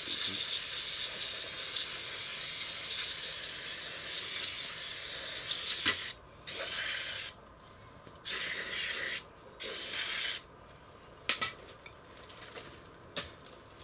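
Pressurised spray hissing in one long blast of about six seconds, then three short bursts, with a few sharp clicks in between.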